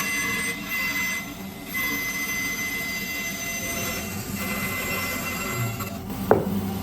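Woodturning lathe running with a tool working the spinning plywood blank: a steady whine over cutting noise, which dips briefly after about a second. A sharp click with a falling ring comes near the end.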